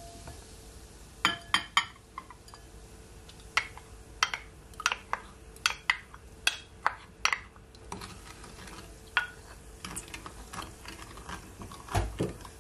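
Wooden spoon scraping ketchup from a small glass bowl into a larger glass bowl of sauce, tapping against the glass in a string of sharp clicks, then stirring. A duller knock comes near the end.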